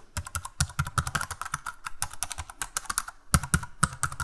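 Typing sound effect: rapid computer-keyboard key clicks with a short pause a little after three seconds in, laid over text being typed out letter by letter.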